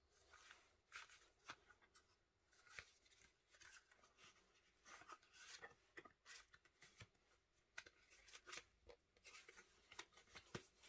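Faint handling sounds of a vegetable-tanned leather card wallet: irregular scratchy rubs and light clicks as plastic cards slide in and out of its leather pockets and the leather flexes.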